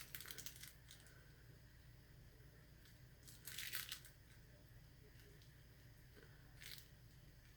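Near silence, broken twice by a brief faint rustle of a plastic piping bag being squeezed to push out the last of the whipped soap frosting: once about three seconds in, and more briefly near the end.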